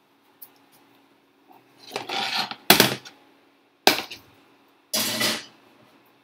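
Stainless steel skillet with a glass lid being set down and shifted on a glass-top induction cooktop: a scrape and clatter, two sharp clanks of metal and glass about a second apart, then another scraping rattle.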